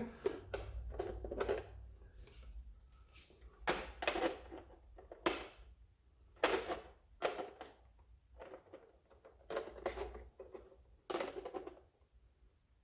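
Hard plastic parts knocking and clicking together in irregular short handling sounds, as a 3D-printed dart holder is tried for fit on a Nerf Mega XL blaster.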